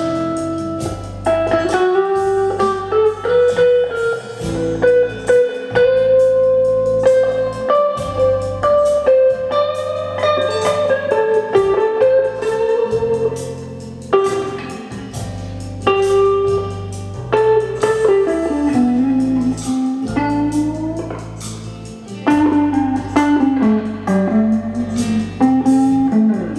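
Fender Stratocaster electric guitar played clean through a 1980 Fender Harvard Reverb II amp, no effects, playing slow blues lead lines with sustained, bent notes that rise and fall in pitch, over a slow blues backing track with drums and bass.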